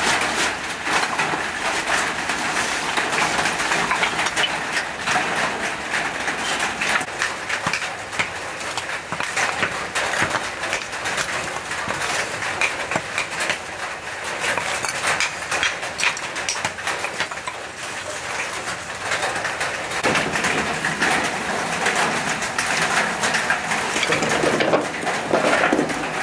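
Lumps of charcoal clattering as they are handled and stacked, over a wood fire crackling, with a steady stream of small clicks and crackles. Birds call in the background.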